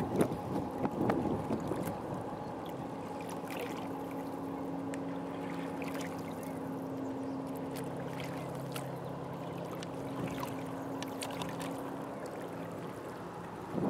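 River shoreline ambience: a steady wash of light wind and small waves lapping at the rocks, with a few faint clicks. A faint, steady low engine hum sets in about three seconds in and fades out near the end.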